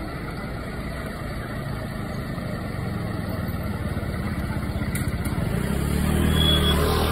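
Motor scooter passing close by, its engine growing louder to a peak near the end, over a steady low rumble from idling fire engines.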